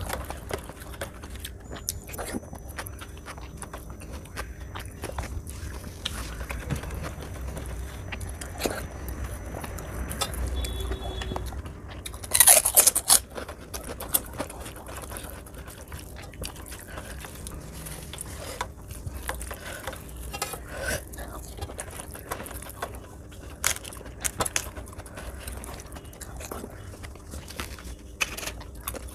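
Close-miked eating by hand: wet chewing and mouth smacks, with fingers squelching dal and rice against a steel plate in small irregular clicks. A loud crackle comes about twelve seconds in and lasts about a second.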